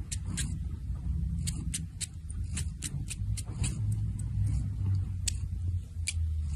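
Domestic cat purring close up, a steady low rumble, with many short wet clicks from its mouth working at its own paw.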